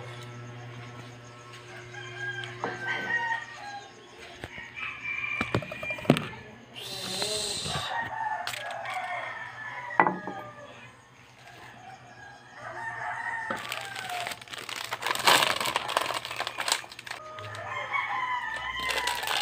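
Roosters crowing again and again in the background, with a couple of sharp knocks and, about three-quarters of the way in, the crinkling of a plastic coffee sachet being handled.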